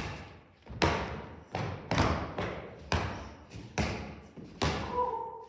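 A series of heavy thuds, about seven or eight irregularly spaced impacts, each dying away with an echoing tail.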